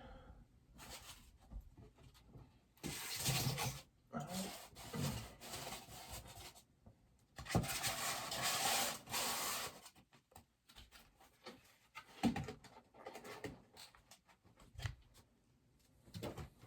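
Bobblehead packaging being handled: several bursts of rubbing and scraping, each a second or two long, then a scatter of light clicks and knocks.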